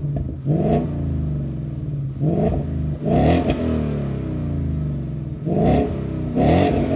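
2015+ Ford Mustang GT's 5.0 L V8 running through a Flowmaster American Thunder axle-back exhaust with Super 44 chambered mufflers, idling just after start-up and blipped to revs five times. It has a tame, traditional Flowmaster tone.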